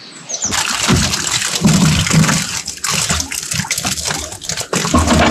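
Water splashing and sloshing in a bucket as a mesh keepnet holding freshly caught perch is moved around in it. The splashing is irregular and continuous, with short knocks, starting about half a second in.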